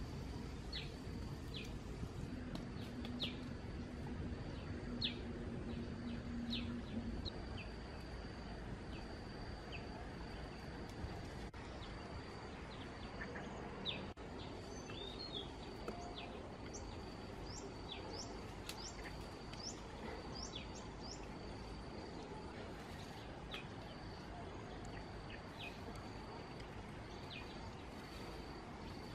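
Birds chirping: many short, quick calls, busiest in the middle, over a steady high-pitched whine and a low background hiss.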